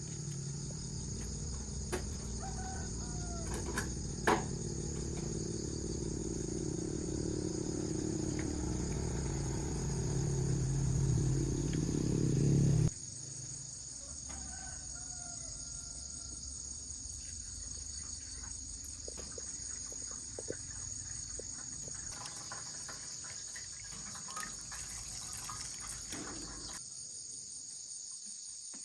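Steady, high-pitched insect chorus. A low rumble sits under it through the first half, grows, then cuts off abruptly about halfway through, and a few faint bird calls sound over it.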